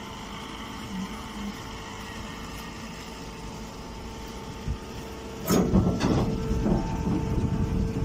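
Hay baler's machinery running with a steady hum. About five and a half seconds in, a loud, irregular crackling and rustling of straw with sharp clicks begins, and the machine's tone changes with it.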